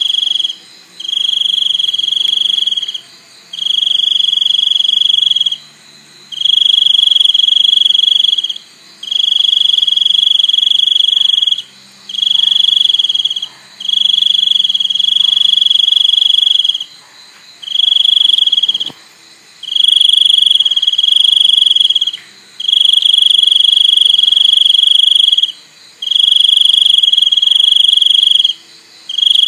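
A cricket singing loud, steady, high-pitched trills, each lasting about one and a half to three seconds, with short breaks between them; about a dozen trills in all.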